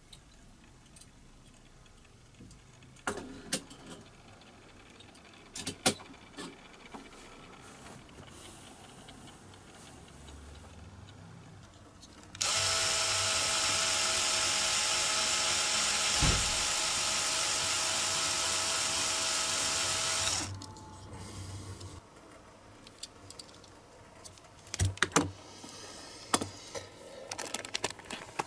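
Electric drill running steadily for about eight seconds, starting and stopping abruptly, as it drills out the rivet holding a diecast toy car's metal base so the model can be taken apart for restoration. Light clicks and knocks of the car being handled come before and after.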